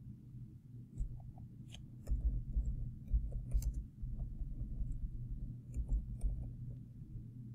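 Computer keyboard keystrokes and mouse clicks: irregular small clicks with dull low thuds, over a steady low hum.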